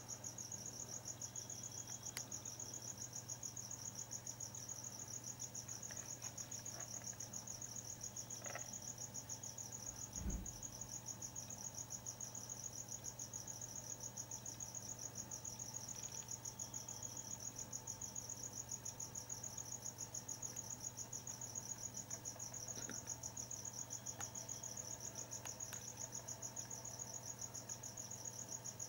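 Crickets chirping in a continuous, fast-pulsing high trill, over a steady low hum, with one dull thump about ten seconds in.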